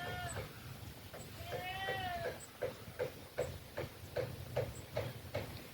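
An animal calling: two drawn-out calls of about a second each, arching up and then down in pitch, followed by a run of short sharp notes about two and a half a second.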